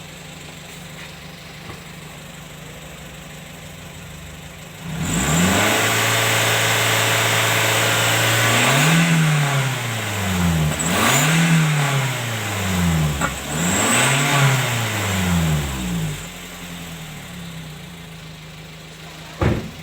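Engine with a bolt-on exhaust turbo whistle idling, then revved hard about five seconds in, its pitch climbing and falling back three times with a thin high whistle over the exhaust note, before settling back to idle. A sharp click near the end.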